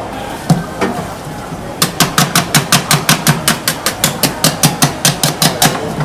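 Rapid, even run of sharp knocks, about five or six a second for roughly four seconds, after two single knocks: a kitchen tool striking a hard surface while seafood is prepared.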